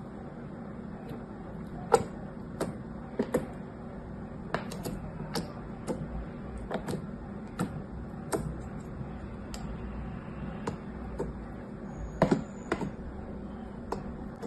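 Clear slime pressed and spread with a plastic spatula, giving irregular sharp clicks and pops, about one or two a second, with a few louder ones about two seconds in and again near the end.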